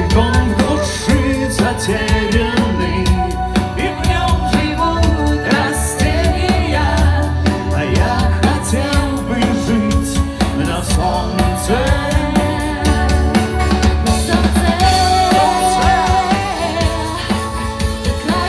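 Music with singing over a heavy bass and a steady drum beat.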